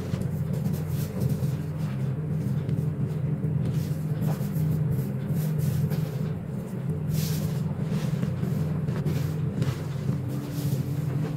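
Hands squeezing and crumbling a heap of powdery gym chalk and corn starch, sped up: soft dry crunching and hissing of the powder, in short repeated bursts, over a steady low hum.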